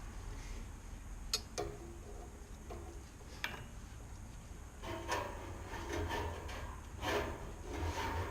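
Hand work on a tiller's throttle control: a few sharp clicks and taps, then about halfway through, several bouts of rubbing and scraping of parts being worked loose.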